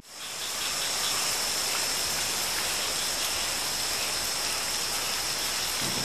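Steady rain falling: an even hiss, with a thin high steady tone running over it.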